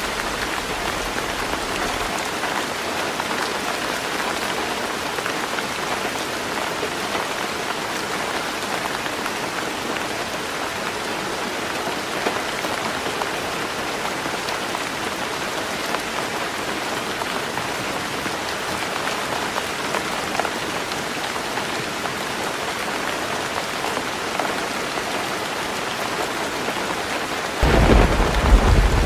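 Heavy rain falling steadily on a roof. About a second and a half before the end, a loud low rumble of thunder breaks in over the rain.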